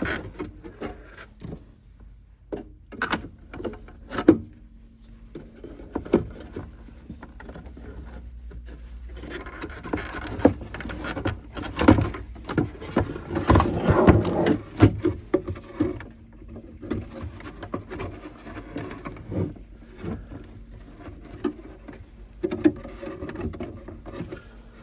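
Hands working at the chassis of a 1950s Zenith tube clock radio to slide it out of its cabinet: scattered knocks and clicks, with a busier stretch of scraping and rubbing about midway.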